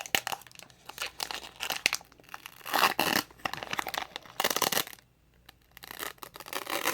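Foil wrapper of a Pokémon trading-card booster pack crinkling and tearing in irregular bursts as it is pulled and picked at to open it, with a short lull about five seconds in.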